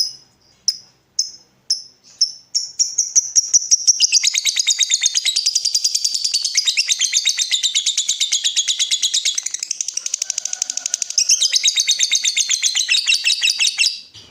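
Lovebird calling: a few separate high chirps, about two a second, then from about four seconds in a long, very fast run of chattering notes that goes on almost to the end.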